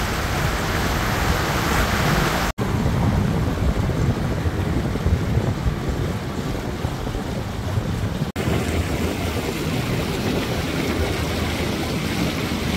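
Pontoon boat under way: a steady rush of wind buffeting the microphone mixed with water noise from the moving hull and motor, broken by two split-second gaps.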